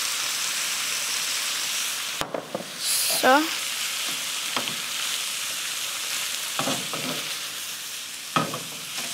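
Minced meat, vegetables and potato pieces sizzling steadily in a frying pan, with a wooden spoon stirring and scraping them round the pan in a few short strokes. The sizzle briefly drops out about two seconds in.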